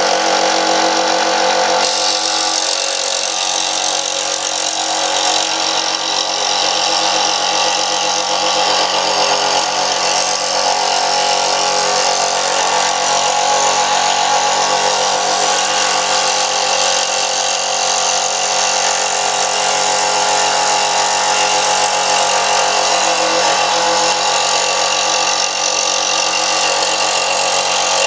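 Dremel scroll saw running steadily with a hum, its reciprocating blade cutting through a piece of plywood; the cutting hiss comes in about two seconds in.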